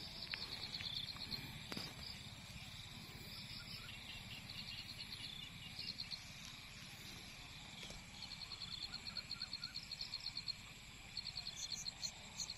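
Quiet evening chorus of frogs and small paddy frogs calling with insects: short trains of rapid, high-pitched pulses recur every second or two over a steady high buzz.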